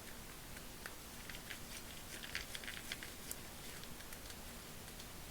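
Faint, irregular light clicks and ticks of a T10 Torx driver working the small screws into a ratchet head's cover plate, with a cluster of clicks in the middle.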